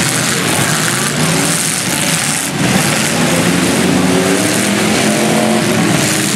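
Several demolition derby cars' engines revving at once over a dense noise, with a sharp bang about two and a half seconds in.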